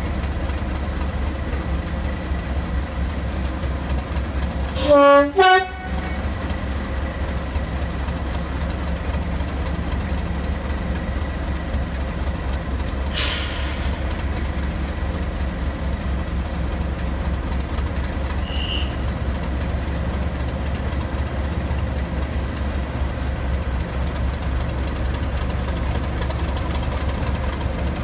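English Electric Class 37 diesel locomotive's V12 engine running steadily with a low rumble, and its two-tone horn sounded once about five seconds in: a short lower note followed by a higher one. A short hiss comes about thirteen seconds in.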